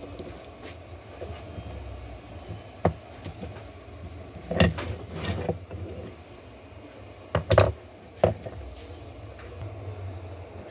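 Clicks and knocks of a dome IP camera's plastic housing, metal bracket and circuit boards being handled and set down on a workbench: a handful of sharp taps, the loudest a close pair about seven and a half seconds in, over a steady low hum.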